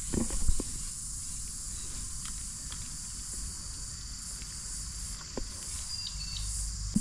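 Insects droning steadily in a high, even hiss, with a few faint clicks and knocks in the first second and again about five seconds in.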